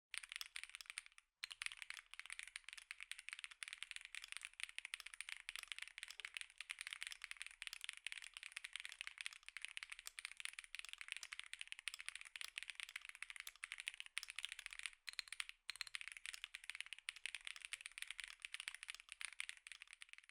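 Fast typing on an Epomaker Tide 65 aluminium gasket-mount keyboard with its stock Epomaker Lemon linear switches: a dense, rapid run of key clacks, with short pauses about a second in and again around fifteen seconds in.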